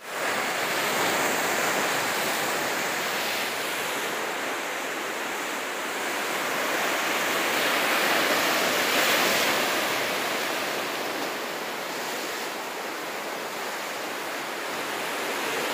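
Ocean surf breaking and washing over coastal rocks: a steady rushing that swells and eases, loudest about eight to nine seconds in.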